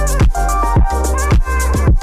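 Background electronic dance music with a steady kick drum, about two beats a second, under held synth notes.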